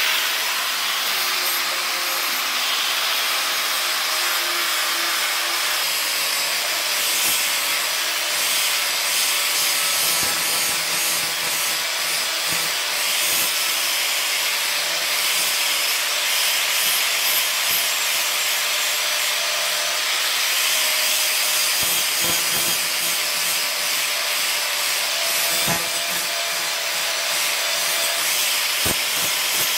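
Angle grinder running steadily with an abrasive disc pressed against a steel knife blade, a continuous grinding hiss over the motor's whine as sparks fly off the metal. A few light knocks come near the end.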